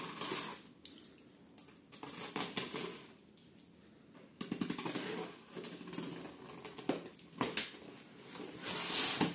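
Box cutter scraping and slicing through packing tape on a cardboard box, with tape ripping and cardboard flaps rustling as they are pulled open. The loudest rip comes near the end.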